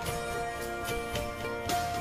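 Instrumental background music, with held melodic notes and light percussive hits.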